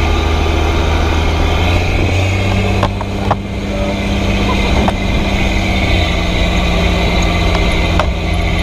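M35A2 deuce-and-a-half's multifuel inline-six diesel engine running loud as the truck drives, heard from its open cab. The engine note shifts a couple of times, and there are a few short knocks and rattles.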